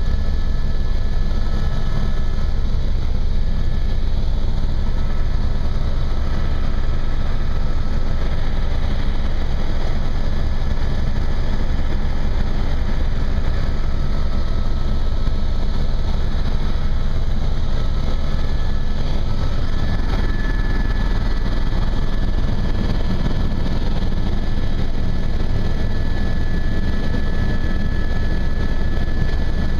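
Helicopter cabin noise in flight: the steady drone of the rotor and engine heard from inside the cabin, with a faint high whine on top. The low drone grows a little stronger about twenty seconds in.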